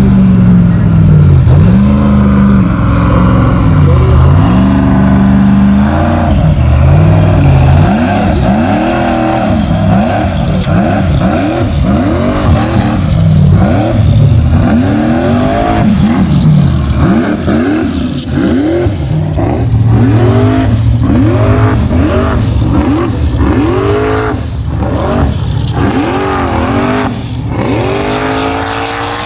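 Formula offroad race truck's engine revving hard, its pitch sweeping up and down over and over as the throttle is worked, in slower swells at first and then in quick repeated bursts.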